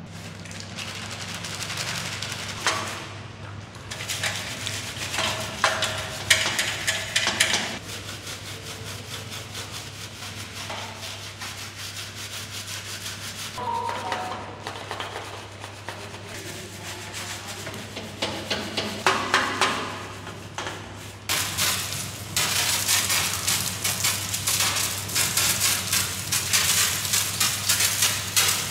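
A stiff brush scrubbing a steel motorcycle frame with soapy water, in bursts of quick rubbing strokes. About two-thirds of the way in, a pressure washer's jet starts spraying the frame, a loud steady hiss that continues to the end.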